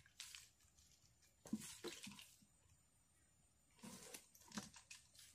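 Faint rustling and watery splashing in a few short bursts as a wet nylon mesh trap is shaken and tipped into a plastic bucket.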